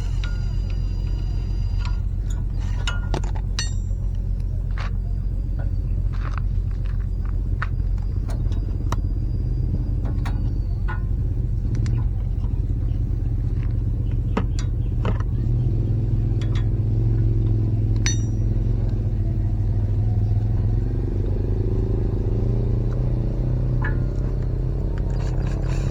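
Steady low mechanical rumble that swells somewhat past the middle, with scattered sharp clicks and taps of hand tools on metal.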